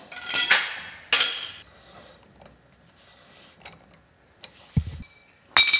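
Steel T-handle socket wrench clanking and ringing against the front wheel hub of a 1932 Ford BB truck as it is spun to unscrew the hub cap. There are two ringing clanks near the start, light ticking and scraping, a dull thump just before the end, and a loud ringing clank at the end.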